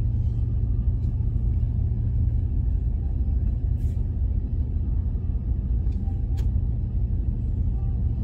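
A car's engine idling, a steady low rumble, with a couple of faint clicks about four and six and a half seconds in.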